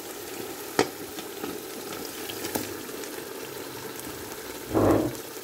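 Chicken curry frying in a pot, a steady sizzle with a few sharp utensil clicks and a short, louder burst of noise near the end.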